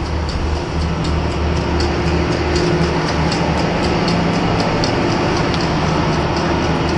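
Chairlift machinery running at the loading station: a steady mechanical hum from the drive and bullwheel, with a quick regular clicking of the haul cable and chair grips over the sheaves, about three clicks a second.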